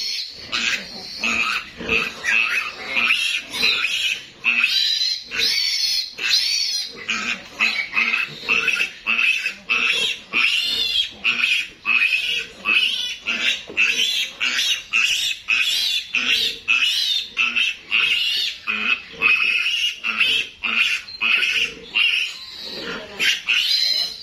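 Young piglet squealing, held up by its hind legs while being castrated: a long unbroken run of short, shrill squeals, about two a second.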